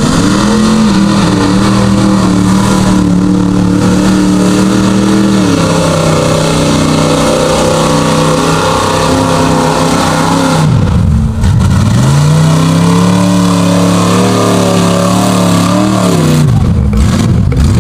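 Lifted Ford Ranger club cab's engine running at high revs as it pushes through a mud bog. The revs ease down a little about a third of the way in, dip sharply and climb back up around the middle, then fall away near the end.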